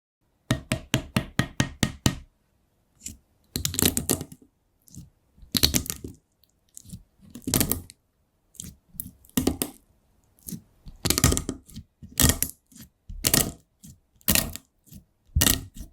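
Slime being squeezed and poked by hand: a quick run of sharp clicks at first, then crackling, popping bursts every one to two seconds.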